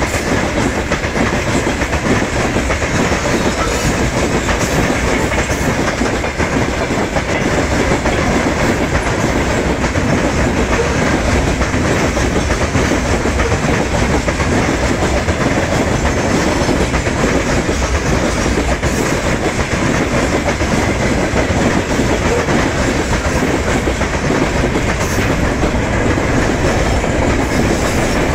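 Freight train wagons, open gondola cars and then boxcars, rolling past steadily, with the wheels clattering over the rail joints in a continuous clickety-clack.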